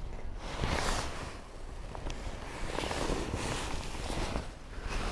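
Wind gusting across the microphone in light rain: a rushing hiss that swells and fades every second or so, with a few sharp ticks of raindrops.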